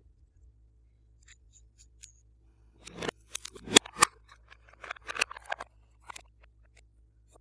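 Glossy slime being worked by hand: a few faint ticks, then a dense run of sticky clicks and crackling pops about three seconds in that lasts a couple of seconds, with a few stray clicks after.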